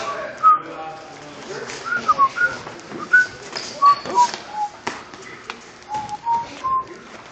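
Sparring on a hard hall floor: thuds and scuffs of footwork and strikes, with a scatter of short, high, squeak-like tones, some sliding up or down in pitch.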